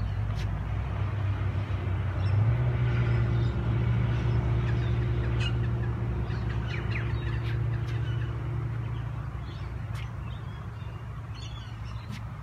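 Low steady engine hum that steps up slightly in pitch about two seconds in and fades over the last few seconds, with bird calls and a few light taps over it.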